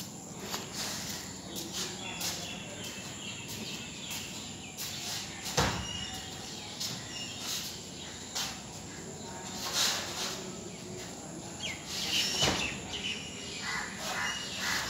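Open-air background hiss dotted with short sharp clicks and a few stronger knocks, with faint distant voices near the end.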